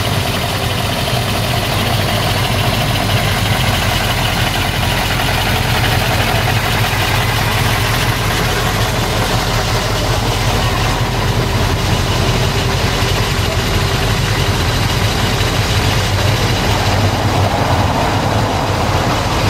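Tour coach's diesel engine idling with a steady low hum, mixed with street traffic.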